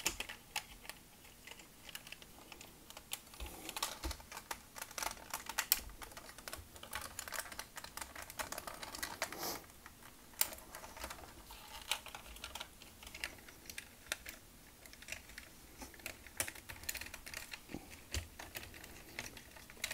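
Quiet, irregular clicking and tapping of hard plastic toy parts being pressed and fiddled by fingers: the panels of a Zeta Toys ZA-05 Racket transforming figure, with a tab that will not peg into place.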